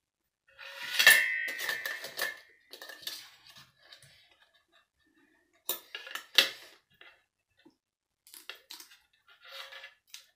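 Metal spoon and fork clinking and scraping against a large stainless-steel tray. There is a loud, ringing clink about a second in, a cluster of lighter knocks after it, two sharper clinks around six seconds in, and softer clinks near the end.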